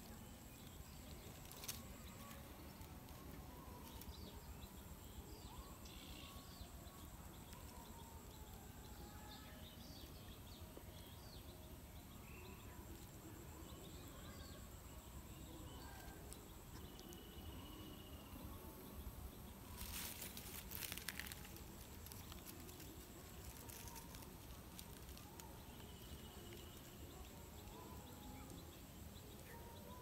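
Faint outdoor ambience: scattered soft bird chirps and a thin steady insect drone over a low background hum, with one brief noisy burst about twenty seconds in.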